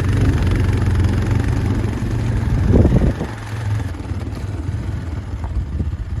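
Motorcycle engine running on a rough, slippery trail, with a short rev about three seconds in, after which it drops to a quieter, lighter throttle.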